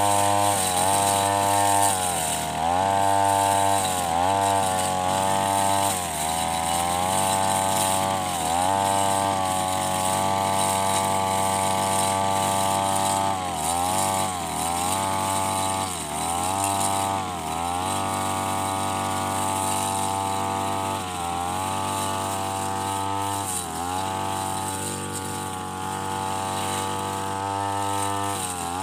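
Backpack brush cutter's engine running at high speed, its pitch dipping and recovering every second or two as the cutting head bites into thick, overgrown grass.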